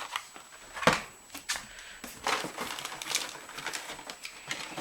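Packaged Hot Wheels die-cast cars being handled: irregular crinkling of plastic blister packs and light clicking knocks, the sharpest about a second in.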